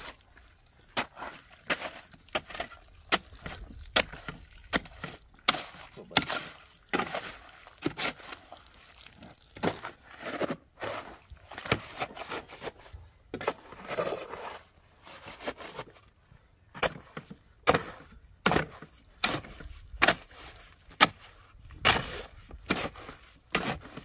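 Steel shovel chopping and scraping through wet cement mix in a metal wheelbarrow, with repeated sharp strikes, one to two a second.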